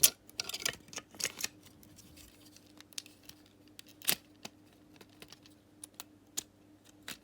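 Irregular small plastic clicks and snaps as an Xbox One controller's bumper buttons and shell parts are pressed and worked back into place by hand; the sharpest click comes right at the start, with a few more scattered after it.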